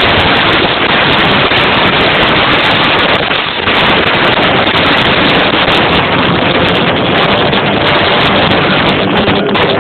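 Live rock band with electric guitars playing loud, recorded so close that the sound is overloaded and distorted into dense noise with no clear notes; it dips briefly about three and a half seconds in.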